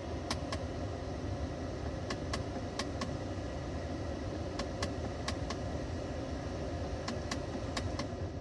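Sharp intermittent clicking from the dashboard of a 2015 petrol Kia Carnival with the air conditioning on. The clicks come in quick pairs at uneven gaps of one to two seconds, over the steady hum of the running car.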